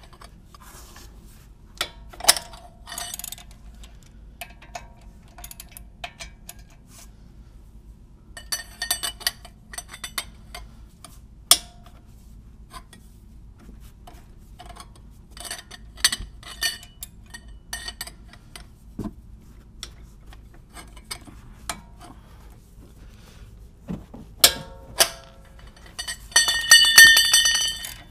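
Breaker bar and socket clinking and knocking on the 19 mm caliper bracket bolts of an Acura MDX front brake as the tight bolts are broken loose, in scattered clusters of sharp metal clicks. Near the end a ratchet clicks rapidly as a loosened bolt is spun out.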